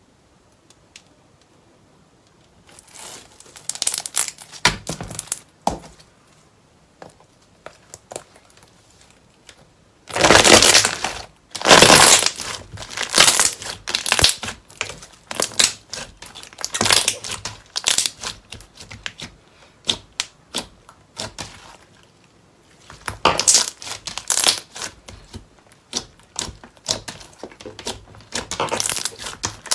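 Slime being squeezed and pressed by hand, crackling and crunching in dense runs of small pops with short pauses between, starting about three seconds in.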